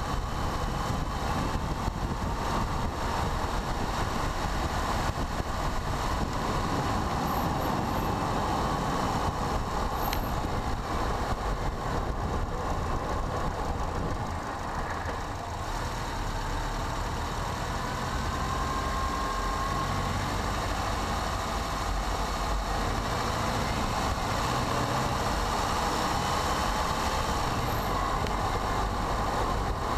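Car driving slowly, a steady mix of engine and tyre noise on the road, heard from the car itself.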